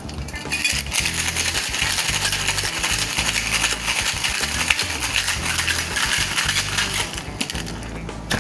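Ice cubes rattling fast and hard inside a two-piece metal cocktail shaker as a cocktail is shaken for about seven seconds. The rattle stops near the end and is followed by a single knock.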